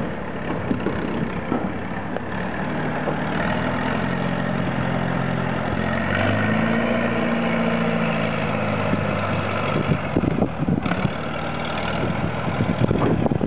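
An engine running at low speed, its hum rising and falling in pitch through the middle, with wind buffeting the microphone near the end.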